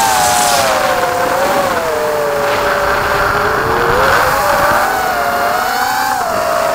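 Goby 180 mini quadcopter's brushless motors and propellers whining in flight, heard from the onboard camera: several close pitches that rise and fall together as the throttle changes.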